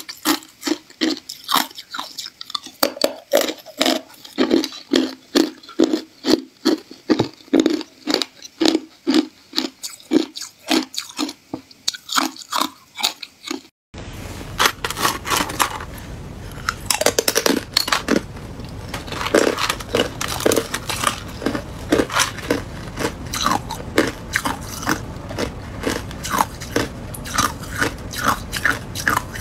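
Hard ice being bitten and chewed close to the microphone: rapid crunching and cracking, about two crunches a second. About halfway through, the sound switches to a different recording with a steady hiss underneath the crunches.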